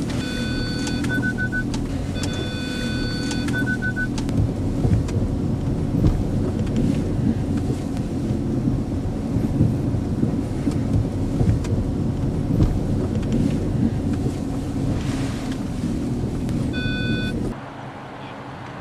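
VW Touareg heard from inside the cabin creeping over a wet, rough off-road track, a steady low rumble of engine and tyres. Over it the parking-sensor warning chimes twice in the first four seconds, each a held tone breaking into quick beeps, and once more briefly near the end, just before the rumble drops away.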